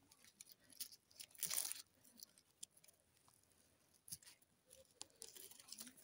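Faint rustling and crackling of dry leaf litter and twigs on the forest floor, in scattered small clicks with a louder rustle about a second and a half in.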